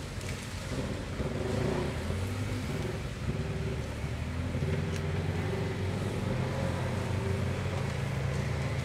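Polaris RZR side-by-side's engine running at low revs as it crawls up a steep, leaf-covered slope, the pitch shifting slightly up and down as the driver feathers the throttle.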